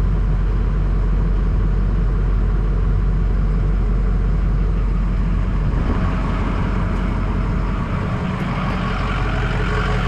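2007 Ford F-250's 6.0 liter Power Stroke V8 turbodiesel idling steadily with the AC running on high while the system is charged with R134a refrigerant. A brighter hiss joins about six seconds in.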